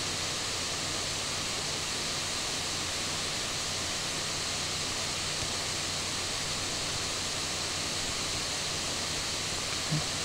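Steady background hiss with a faint low hum underneath; no other distinct sound.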